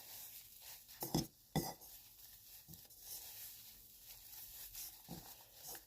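Wet, soapy toy stuffing being mixed in a bowl: faint squishing and handling, with two sharp clicks about a second in and a few fainter ones later.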